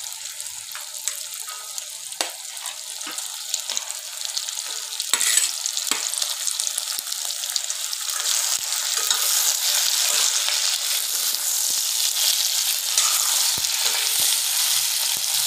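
Raw goat meat sizzling as it goes into hot mustard oil in a karahi, with a few sharp knocks in the first six seconds. The frying gets louder about halfway through.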